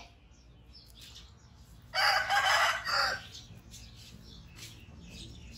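A rooster crowing once, about two seconds in, a harsh call lasting a little over a second.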